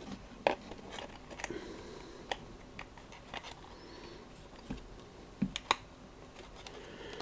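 Scattered light clicks and taps of small hard parts being handled, about a dozen at irregular intervals, the sharpest about half a second in and two close together around five and a half seconds in.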